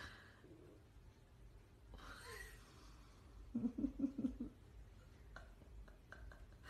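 Cat-and-dog standoff: a short hiss with a falling yowl from the cat about two seconds in, then a brief pulsing low growl about a second and a half later.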